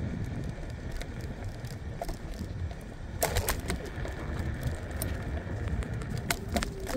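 Wind buffeting the phone's microphone and road rumble from a moving scooter, with a few sharp clicks or rattles a little over three seconds in.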